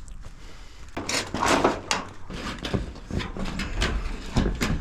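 Irregular knocks, scrapes and rattles of a metal siding panel being handled and fitted against a mobile home's framed wall, starting about a second in.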